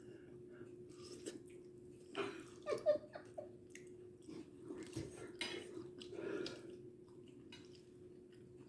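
Someone chewing a mouthful of food close to the microphone, with soft wet mouth clicks in irregular bursts. A steady low hum runs underneath.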